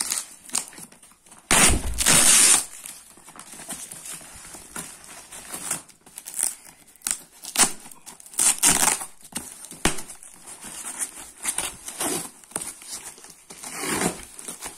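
Plastic parcel wrapping and packing tape being cut open with a box cutter and pulled apart: irregular crinkling, rustling and tearing, loudest for about a second around two seconds in, then in shorter bursts.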